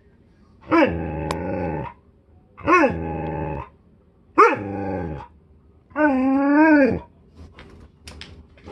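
Husky vocalizing: four drawn-out calls of about a second each, each starting with a quick falling yelp and then holding a rough, sustained tone; the last call is lower and wavers up and down in pitch.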